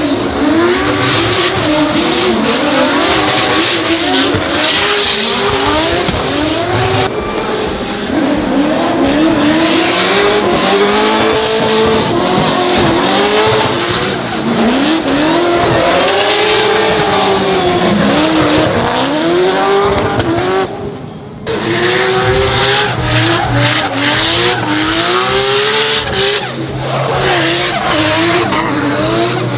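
Two drift cars sliding in tandem, their engines revving up and down again and again with the throttle over continuous tyre squeal. The sound dips briefly about two-thirds of the way through.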